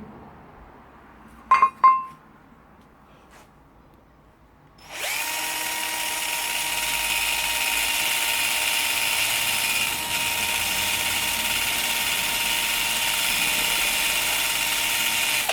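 Electric drill spinning a polishing mop loaded with compound against an aluminium part. After a couple of sharp clicks, the motor spins up about five seconds in and runs at a steady whine for about ten seconds, cutting off suddenly at the end. The polishing is not taking: the compound is doing nothing to the metal.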